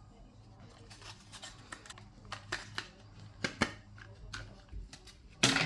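Irregular small clicks and taps of parts and packaging being handled, with a louder short rustling scrape near the end, over a faint low hum.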